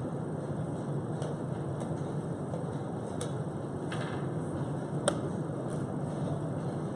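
Steady hum of a quiet playing hall with a few small clicks. About four seconds in a wooden chess piece is set down on the board, and a sharper click follows about a second later as the move is completed, most likely the chess clock being pressed.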